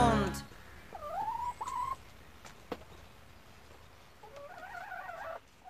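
An animal calling: a short call rising in pitch about a second in, then a quick, wavering call near the end, with a few faint clicks between.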